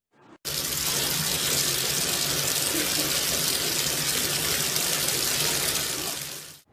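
Bathtub tap running, a steady stream of water pouring over a puppy standing under it and into the tub. It starts suddenly about half a second in and fades near the end.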